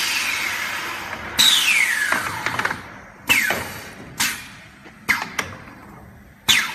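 Pneumatic cylinders and valves of a CNC four-corner welding machine for uPVC window frames actuating: a series of about six sharp air hisses, each starting suddenly and fading, several with a falling whistle.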